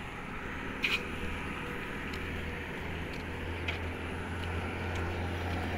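Low, steady engine rumble of a nearby motor vehicle, growing louder in the second half, with a few light clicks over it.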